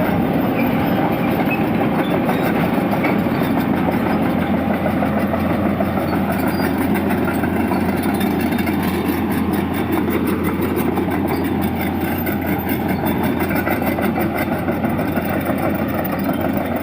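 Heavy diesel engine running steadily with a constant low hum, from the excavator and dump truck at work.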